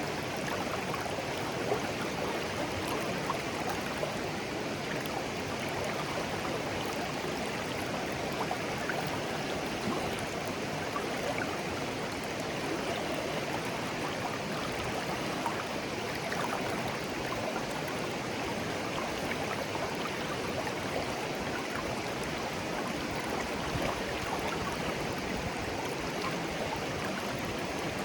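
Shallow clear stream babbling steadily over stones, an even rushing flow with faint little splashes and trickles.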